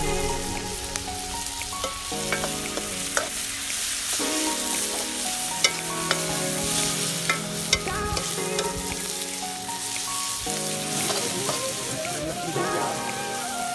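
Sliced onions sizzling in hot oil in a two-handled kadhai (wok) while a steel ladle stirs them, with a few sharp clinks of the ladle against the pan.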